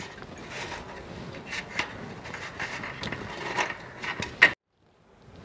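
Hardened sugar candies being peeled off a greased stainless-steel tray by hand: faint scraping with a few light clicks of candy and fingers on the metal, then a sudden cut to silence near the end.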